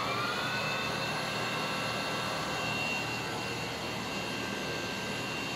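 Ghiringhelli M2200 CNC centerless grinder running at its maximum speed setting. Its motor whine finishes rising in pitch in the first second, then holds steady over a constant mechanical hum.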